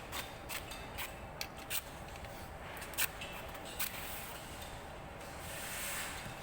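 Scattered, irregular sharp clicks and knocks over a steady hiss, the loudest about three seconds in: tools and materials handled during overnight construction work on a railway level crossing.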